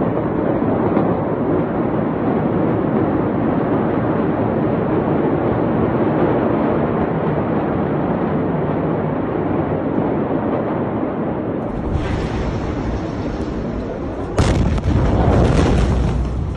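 Steady loud noise and a deep rumble, then about three-quarters of the way through a sudden loud blast from the Beirut port explosion hits the microphone, followed by rumbling.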